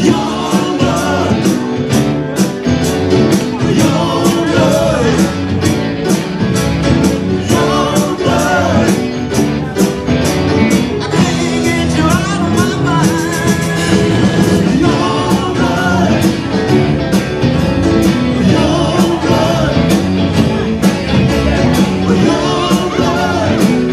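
Live rock band playing amplified: electric guitars, bass, keyboard and drums, with a steady drum beat.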